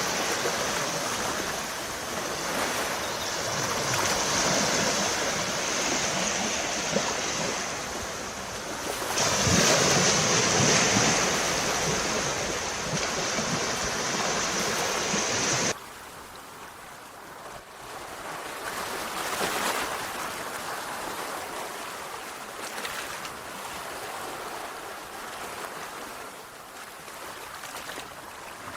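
Sea waves washing ashore, a steady surf noise that swells and ebbs. About halfway through it drops suddenly to a quieter, duller wash.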